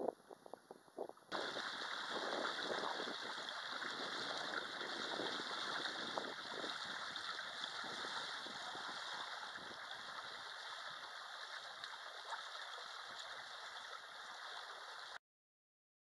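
Water rushing and gurgling past the hull and outrigger float of a small sailing proa under way. It is heard from on board as a steady rush that starts suddenly about a second in and cuts off suddenly near the end. Before it there are a few faint splashes of small waves.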